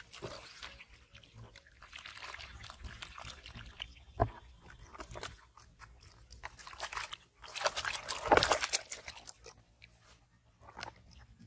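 Live fish thrashing and splashing in a shallow plastic tub of water, in uneven bursts with a sharp slap about four seconds in; the longest and loudest splashing comes about eight seconds in.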